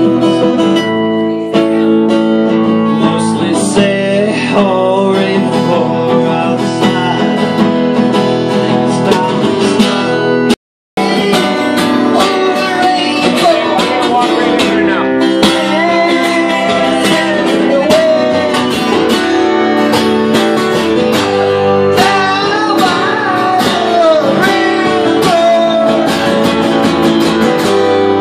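Music throughout: about ten seconds of intro music, a brief break to silence, then two acoustic guitars strummed with a man singing along into a microphone.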